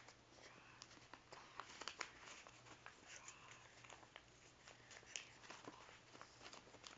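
Faint rustling and crinkling of paper being folded and creased by hand, with scattered light clicks and taps.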